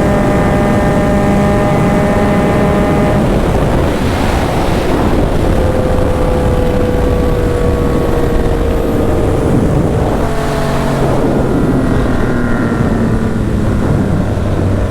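Yamaha MT-09 three-cylinder engine heard from on board, with wind rushing on the microphone. It holds a steady note for about three seconds, then its pitch falls slowly as the bike slows, and near eleven seconds it settles into a lower steady note.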